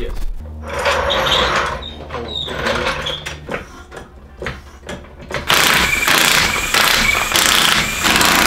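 Cordless impact wrench running in several long runs from about five seconds in, spinning the wheel bolts off, and loudest of all. Before that, uneven clanking and rattling as a floor jack is worked under the car.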